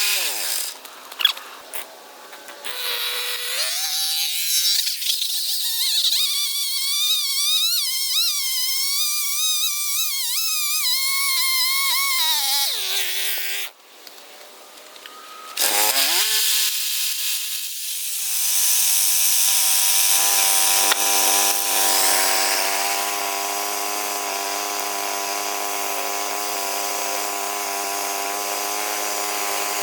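Band sawmill running, its engine pitch wavering, falling and climbing again as the blade works through white oak. After a short dip in level around the middle, it settles into a steady, even run.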